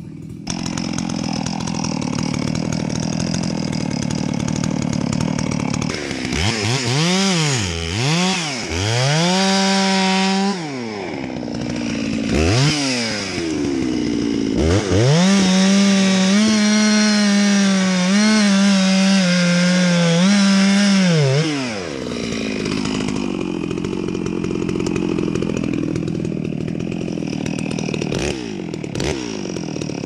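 Two-stroke chainsaw idling, revved in short bursts, then held at full throttle for about six seconds, its pitch wavering slightly as it cuts into a dead standing tree, before dropping back to idle. A few sharp knocks come near the end.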